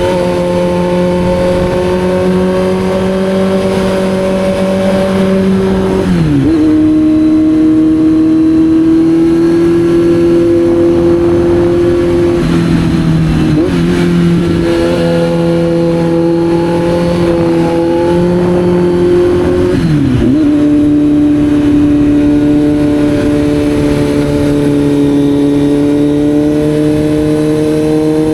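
Kawasaki Z900's inline-four engine running at a steady, held engine speed, heard from on board while riding. Three times the pitch drops quickly and then settles again, as at gear changes.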